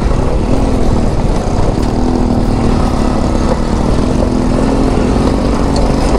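Bajaj Pulsar NS200 single-cylinder engine running at a fairly steady note while riding over a rough gravel track, under a heavy steady rush of wind noise on the microphone.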